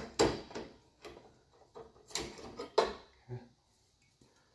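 Clicks and knocks of a fluorescent tube being twisted out of its plastic lampholders and lifted from a ceiling fixture: a sharp knock at the start, then a couple more about two and three seconds in.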